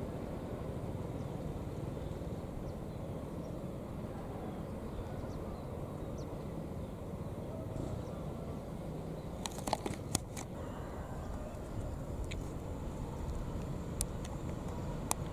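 Faint, steady low rumble of a distant passenger train running along the line, with a few sharp clicks about ten seconds in and near the end.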